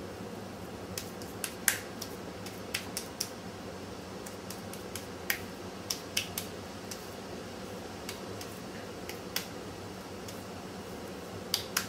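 Irregular small wet clicks and smacks of hands working sticky raw ladyfish meat into a patty in a glass bowl, over a steady low hum.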